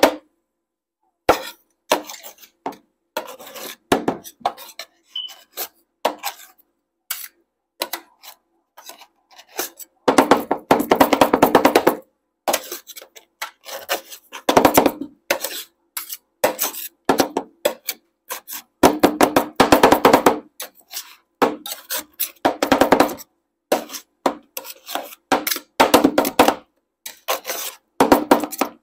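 Metal spatulas chopping and scraping on the steel cold plate of a rolled ice cream machine, working an ice cream base with peanut butter chunks: quick irregular taps and rasping scrapes, with two longer stretches of steady scraping about ten and nineteen seconds in.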